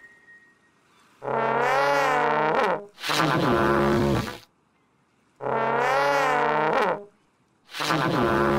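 Four long brass honks, trombone-like, each about a second and a half with a slightly wavering pitch: the tooting voices of golden trumpet-shaped cartoon figures. The first two come close together and the last runs on past the end.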